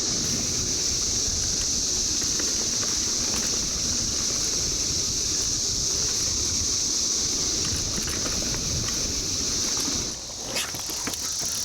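Chorus of 17-year periodical cicadas, a steady high-pitched drone, over low wind rumble and tyre noise from a mountain bike riding the trail. The rumble eases about ten seconds in.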